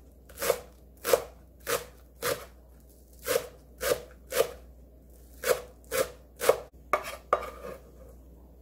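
Chef's knife chopping green onions on a wooden cutting board: about a dozen sharp strokes, roughly two a second, in short runs that stop about a second before the end.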